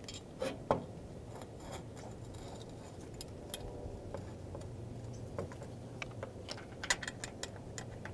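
Faint metallic clicks and taps of bolts and nuts being handled and threaded on by hand, fastening a header-height sensor bracket to a combine header's cutter bar. A few clicks come about half a second in and a quick cluster near the end.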